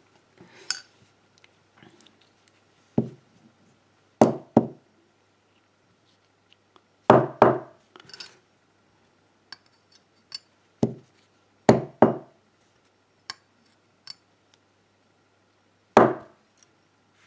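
A lock being knocked against a hard surface to dump out its springs and pin parts: about nine sharp knocks, several in quick pairs, with light metallic clicks of small parts in between.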